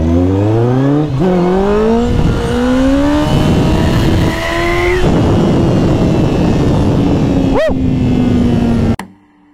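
Kawasaki Ninja sport bike engine accelerating hard on a wheelie: the revs climb and drop with quick upshifts in the first three or four seconds, then hold steady and slowly ease off. The sound cuts off suddenly near the end.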